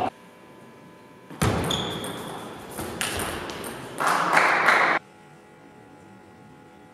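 Table tennis ball being struck and bouncing during a rally, the clicks ringing in a large hall, with a louder burst of noise about four seconds in. The sound cuts off abruptly about five seconds in.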